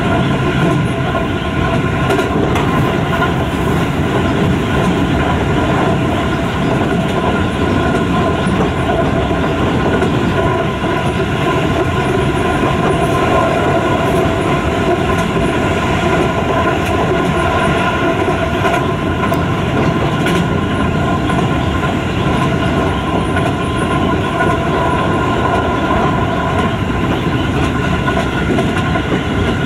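Keio 5000 series commuter train running at speed, heard from inside the passenger car: a steady rumble of wheels on rail with a constant droning hum over it.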